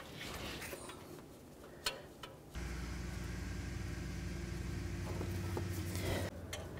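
A few light clicks, then a steady low mechanical hum that starts suddenly about two and a half seconds in and stops abruptly nearly four seconds later.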